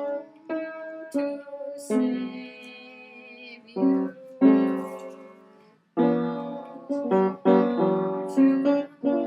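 Piano chords played one after another, each struck and left to ring and fade, while a song's chord progression with seventh chords is worked out.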